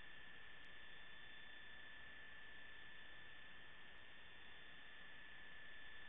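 Faint steady electrical hum and hiss with a constant high-pitched whine: noise in the audio feed, with no game sounds standing out.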